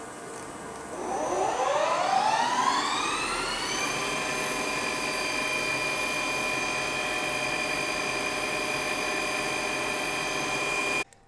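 CNC lathe spindle and chuck spinning up: a machine whine that rises in pitch for about three seconds, then holds steady, over the hiss of flood coolant spraying the acrylic workpiece. The sound stops abruptly near the end.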